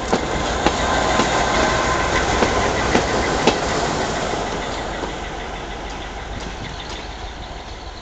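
Train passing close by, its wheels clicking over the rail joints. It is loudest a second or two in, then slowly fades as it moves away.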